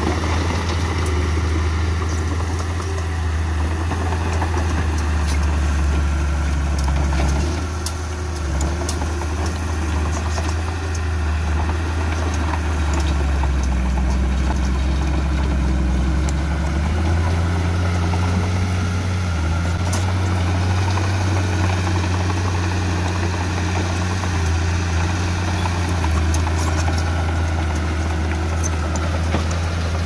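Heavy diesel engine of earthmoving machinery running steadily, its note stepping up a little about halfway through, with scattered metallic clanks and knocks.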